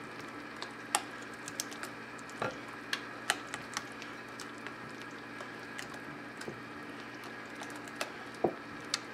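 A spatula hand-mixing a thick cream cheese, sour cream and mayonnaise mixture in a bowl: irregular light clicks and scrapes of the spatula against the bowl, over a faint steady hum.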